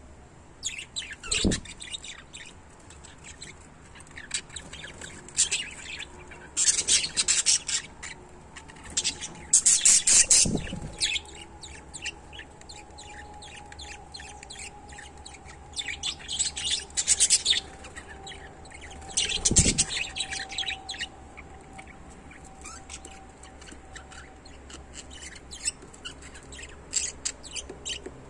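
A pair of small pet parrots chirping in quick, high-pitched bouts of rapid chirps, with pauses between them; the loudest bout comes about ten seconds in. A few low, soft thumps fall among the chirps.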